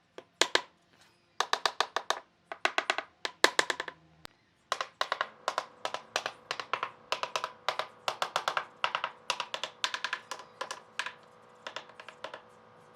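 A rapid series of sharp, ringing taps, several a second: short groups with pauses at first, then a long unbroken run from about five seconds in.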